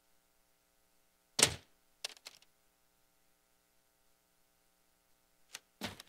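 A cardboard box being picked up and handled: a sharp thump about a second and a half in, two lighter knocks just after, and two more short knocks near the end. A faint electrical hum runs under the quiet between them.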